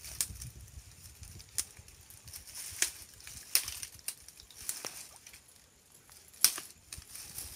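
Sparse light clicks and rustles as a cast net is gathered in the hands and readied for a throw, with steps in the wet grass at the water's edge; the loudest click comes about six and a half seconds in.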